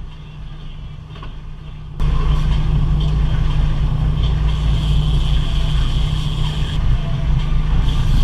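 Boat engine running steadily with rushing wind and water noise, a quieter low hum for the first two seconds, then suddenly much louder.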